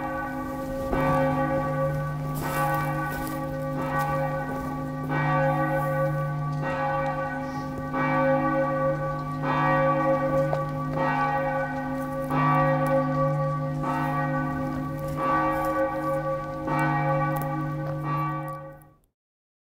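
A large bell tolling over and over, a new stroke about once a second ringing into the last, until the sound cuts off abruptly near the end.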